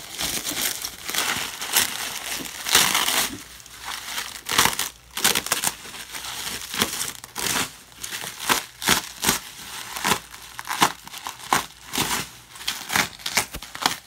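Bubble wrap and plastic sheeting being pulled, crumpled and rustled by hand, an irregular crinkling with many sharp crackles.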